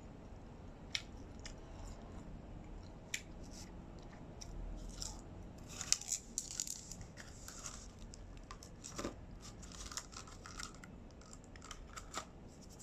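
Close-up chewing and crunching of crispy pizza crust, in scattered crackly bursts with a few sharp clicks, along with hands moving over a cardboard pizza box.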